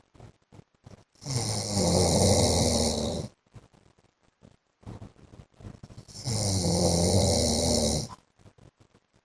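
A man snoring: two long snores, each about two seconds long and about five seconds apart.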